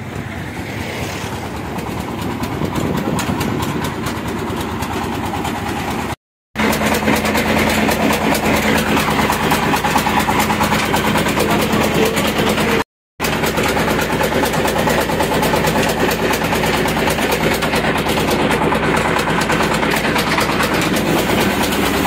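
Village flour mill (chakki) machinery running with a steady mechanical din and a fast, even pulse. It is quieter at first and comes in loud after a cut about six seconds in.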